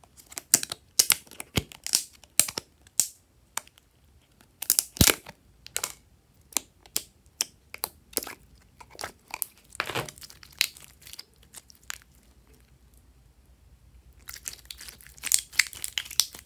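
Glossy slime being pulled out of a thin plastic tub and squeezed by hand, giving sharp, sticky clicks and pops mixed with crinkling of the plastic, in quick irregular runs. A quieter spell of a couple of seconds comes before a dense run of clicks near the end.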